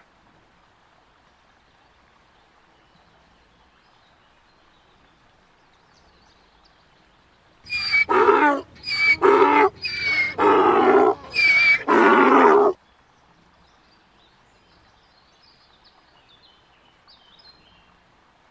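A donkey braying, starting about eight seconds in: a run of loud hee-haw calls that alternate between higher and lower pitch for about five seconds, then stop abruptly.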